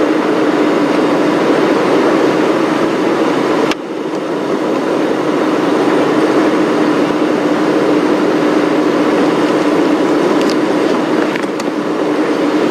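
Safari game-viewing vehicle engine running steadily as it drives, with road and wind noise; the sound dips abruptly once, about four seconds in.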